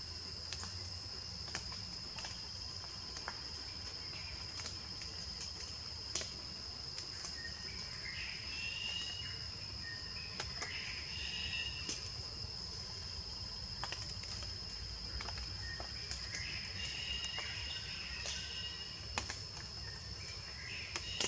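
Forest insects keep up a steady, high-pitched drone throughout. Short chirping calls come and go a few times, with scattered sharp clicks and snaps among them.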